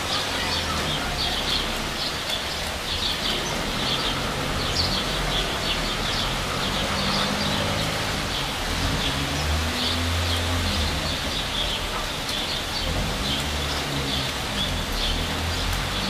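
Steady rain falling, with birds chirping in short, repeated high calls throughout and a low rumble underneath.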